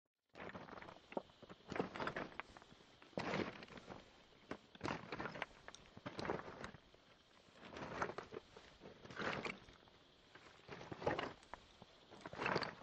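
Footsteps of people walking on the rocky floor of a mine tunnel, an uneven series of short scuffs and treads.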